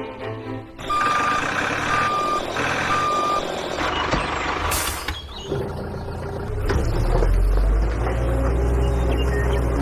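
A truck's reversing alarm beeps three times, about once a second, over running engine noise. A short sharp hiss follows a few seconds in, then a low, steady diesel-truck engine rumble builds near the end.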